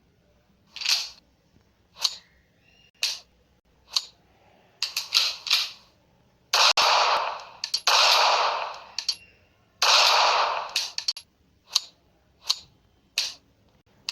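Pistol sound effects for a SIG Sauer P238 micro pistol: a string of sharp mechanical clicks, then three gunshots, each followed by about a second of fading ring, then more sharp clicks.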